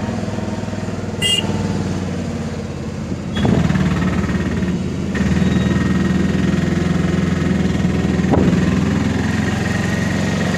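Auto-rickshaw engine running with a steady low drone, heard from inside the open cabin while riding. It gets louder about three and a half seconds in.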